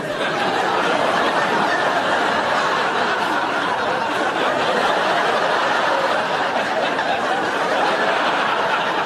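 Studio audience laughing: a dense, steady wash of laughter from many people that starts suddenly and keeps going.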